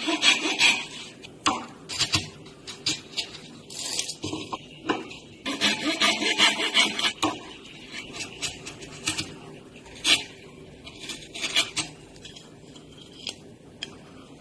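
Steel chisel paring and scraping wood: a series of short, uneven rasping strokes, thinning out toward the end.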